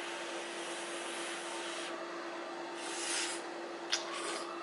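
A person slurping instant ramen noodles off chopsticks, with one loud slurp about three seconds in and a sharp click just before the end, over a steady hiss and low hum.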